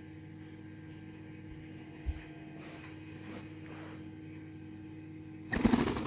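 Steady low electrical hum, with a short low thump about two seconds in. Near the end comes a loud, rapid rustling burst of about half a second.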